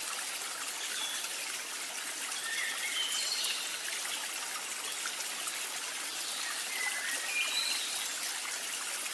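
Steady sound of flowing, trickling water, with a few brief high chirps now and then; it cuts off suddenly at the very end.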